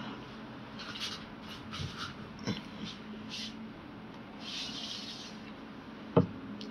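Handling noise on a phone: a run of short rustles and scrapes, then a single sharp knock about six seconds in, over a faint steady low hum.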